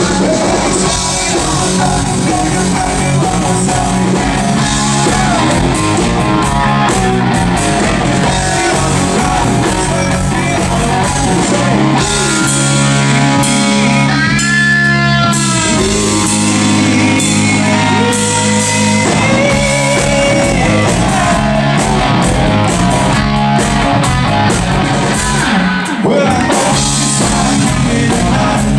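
Live rock band playing a song: electric bass, electric guitar and drum kit, with a man singing lead into a handheld microphone.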